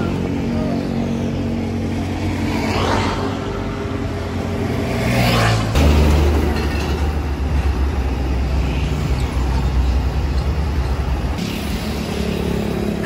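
Large tour bus engine idling close by, a steady low hum that gets deeper and heavier about six seconds in. Road traffic whooshes past several times in the first half.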